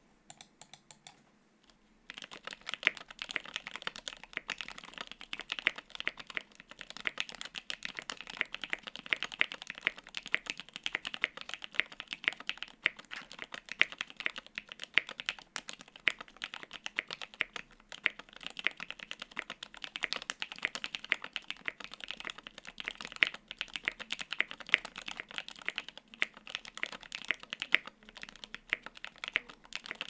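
Typing on a mechanical keyboard: an E7-V2 gasket-mount 75% board with lubed Tealios V2 linear switches on an aluminium plate and GMK doubleshot ABS keycaps. A few separate clicks in the first second and a half, then steady, fast typing from about two seconds in.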